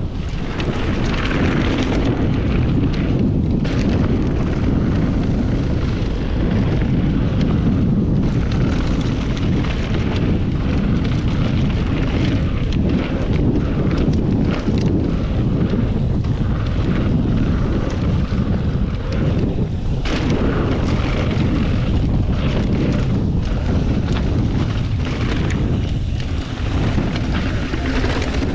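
Steady rumble of wind on an action camera's microphone and mountain-bike tyres rolling over a dirt and rock trail at speed, with short clicks and rattles from the bike over rough ground.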